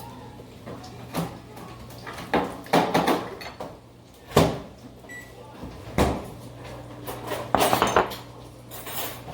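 Kitchen handling noises: a series of separate knocks and clunks as things are moved and set down, with a quick run of taps near the end, over a steady low hum.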